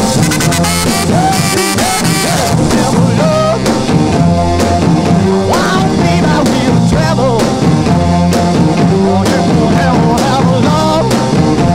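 Background music track with a steady drum beat, a repeating bass line and a melody over it.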